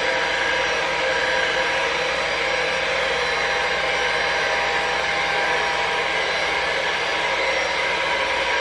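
Handheld hair dryer running steadily, a constant airy rush with a faint motor whine, blowing wet acrylic pour paint across a canvas.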